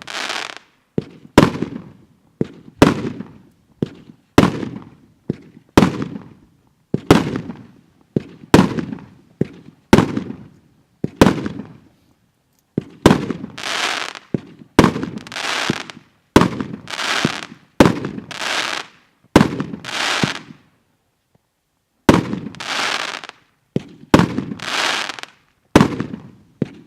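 A 53-shot 20–30 mm consumer fireworks cake firing shot after shot, about one every second and a half. Each shot is a sharp bang followed by a fading hiss. The string pauses briefly twice, about 12 and 21 seconds in.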